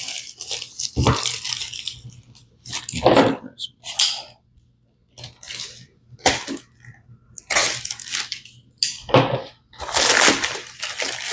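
Packaging handled and rustled in short irregular bursts, with crinkling and scraping noises and brief pauses between them.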